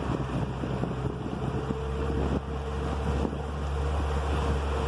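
Boat engine running steadily while under way, with a steady whine joining about a second in and wind buffeting the microphone.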